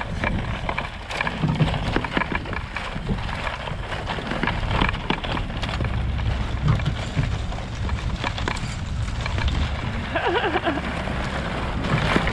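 Chain-link fence drag weighted with wooden pallets clattering and scraping over rough, dry pasture ground as it is towed, a continuous rattle of knocks over a low rumble from the towing vehicle.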